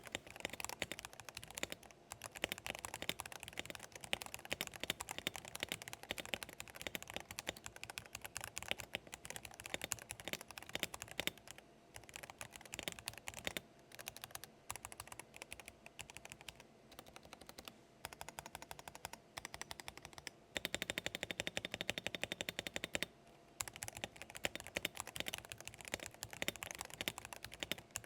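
Typing on an Arzopa 87-key mechanical keyboard with linear switches: a steady run of clacky keystrokes with a few short pauses. About three-quarters of the way through there are a couple of seconds of very fast, evenly spaced key presses.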